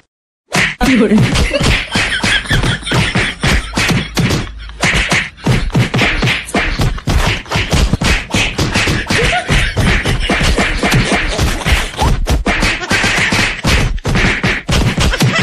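A rapid, nearly continuous string of punch and kick sound effects, sharp whacks and thuds several a second, laid over a staged fist fight. They start after a brief silence about half a second in.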